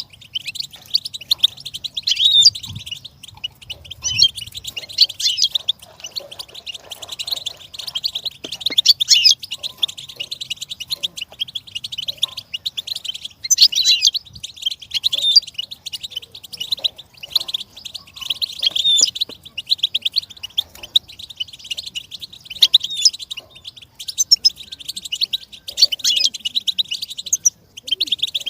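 Goldfinch singing: an unbroken twittering run of rapid high notes, with louder trilled phrases every second or two.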